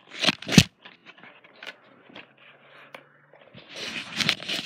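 Handling noise from the recording phone being moved about: two sharp knocks about half a second in, light scratching, then rustling and scraping near the end.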